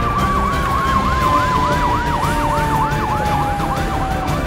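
Fire engine siren: a fast yelp warbling about three times a second over a steady wail that slowly falls in pitch, with a low rumble underneath.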